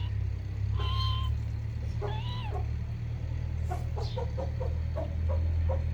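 Pet parrot calling: two short pitched calls, then a quick run of short chattering notes.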